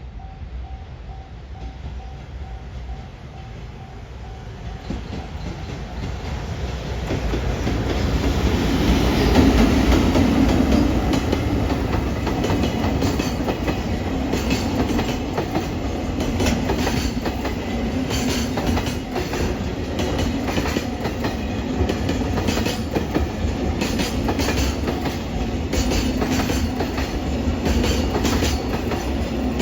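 Freight train passing: its rumble builds over the first several seconds and is loudest about ten seconds in as the locomotive goes by. The wagons then roll past with a steady rhythmic clickety-clack of wheels over rail joints.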